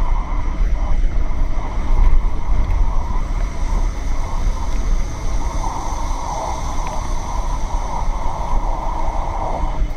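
Cabin noise inside a moving city bus: a steady low rumble from the drivetrain and tyres on the road.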